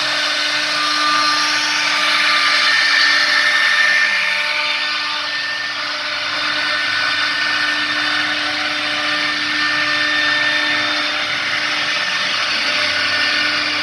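CNC router spindle running and cutting a 3D relief carving: a steady, high-pitched whine over a continuous cutting noise, with small changes in pitch as the tool works.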